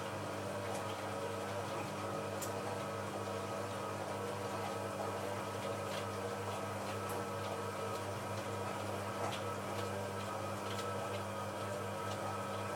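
Hoover 1100 De Luxe washing machine running on its final rinse and spin programme: a steady motor hum with faint scattered ticks.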